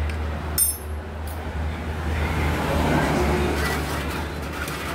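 Metal tools or motorcycle parts clinking twice in the first second and a half, over a steady low hum. A vehicle's rumble swells and fades in the second half.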